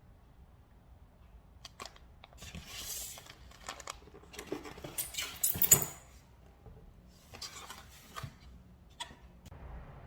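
Meal-kit packaging being handled and opened: plastic crinkling and tearing with sharp clicks and knocks, loudest about six seconds in.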